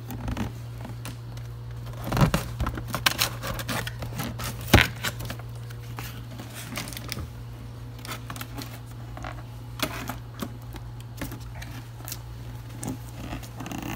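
Cardboard toy box being handled and opened: scattered clicks, rustling and tearing of the packaging, with a sharp snap about a third of the way in, over a steady low hum.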